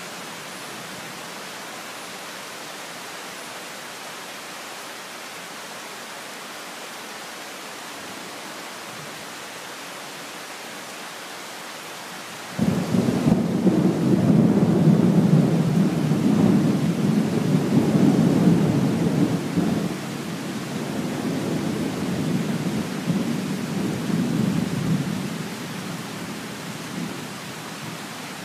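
Steady tropical rain hissing, then about halfway through a peal of thunder breaks in suddenly and rumbles low and loud for several seconds before slowly fading, still rolling at the end.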